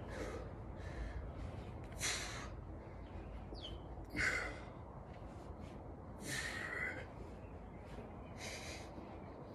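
Heavy breathing from exertion during a set of two-handed triceps extensions: four forceful breaths about two seconds apart, one per repetition.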